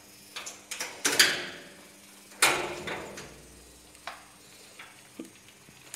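A door being unlocked and opened: a series of sharp latch and lock clicks and knocks. The loudest clack comes about two and a half seconds in, with a low rumble after it as the door swings, followed by a couple of lighter clicks.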